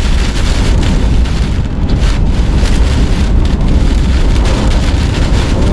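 Hurricane eyewall wind and driving rain, winds around 130 mph: a loud, steady rush with a heavy low rumble of wind buffeting the microphone.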